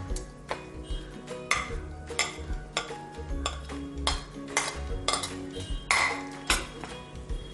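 A metal spoon clicking and scraping against a bowl as dry flour and cocoa are scooped and tipped into cake batter: irregular sharp taps, one or two a second. Background music plays throughout.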